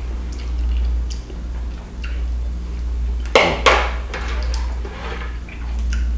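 Eating sounds: a metal spoon scraping and clinking in a glass bowl of creamy chicken and rice, with chewing. Two sharp clicks close together about three and a half seconds in, over a steady low hum.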